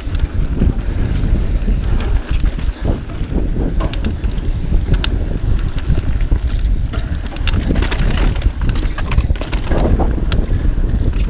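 Wind buffeting the microphone of a camera riding down a mountain-bike trail at speed. The low rumble of knobby tyres on dirt runs under it, with many short rattles and clicks from the bike over rough ground.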